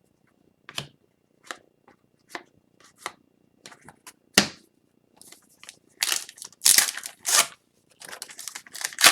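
Trading cards being handled and slid one at a time, a short swish about once a second. From about six seconds in comes the louder tearing and crinkling of a foil card pack wrapper being ripped open, coming off "like a zipper".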